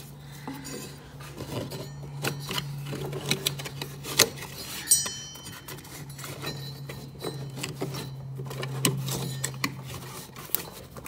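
Hands working a rubber drive belt around the pulleys and brackets under a Ferris Z3X zero-turn mower: scattered clicks, knocks and rubbing of belt on metal parts, over a steady low hum.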